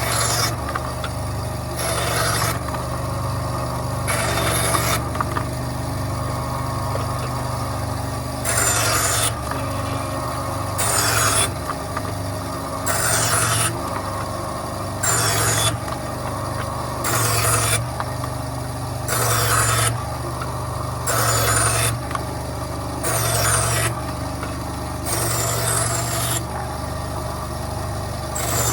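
Bandsaw running with a steady motor hum, its blade cutting through wood in a dozen or so short passes, about one every two seconds.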